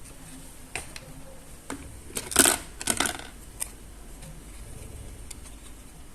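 Small hard plastic toy parts being handled: a few separate clicks and taps, with a louder clatter of pieces knocking together about two to three seconds in.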